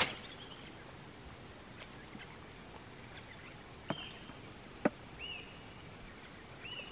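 A fishing rod swishes through a cast at the start. A few short whistled bird calls and two sharp clicks follow over faint open-air background.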